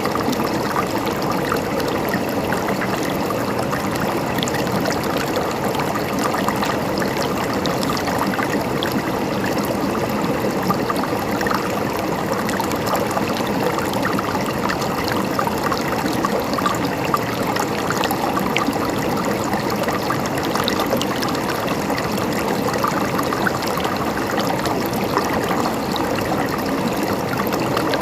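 Shallow flowing water babbling and trickling steadily over stones, a constant even gurgle with no breaks.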